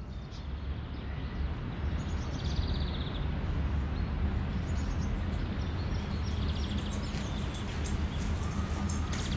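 Steady low outdoor rumble with birds chirping, first about two seconds in and again later. From about six seconds in come sharp footsteps on pavement.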